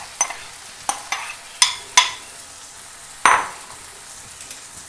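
A spoon stirring mashed potato into frying onion-tomato masala in a pan: several sharp knocks of the spoon against the pan in the first two seconds and a louder one a little after three seconds, over a faint steady sizzle.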